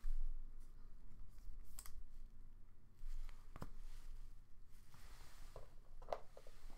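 A few light clicks and taps of trading cards and hard plastic card holders being handled and set down on a table, over a steady low hum.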